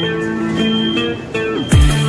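Background music: electronic track with melodic guitar-like notes, then a heavy bass drop with drum hits near the end.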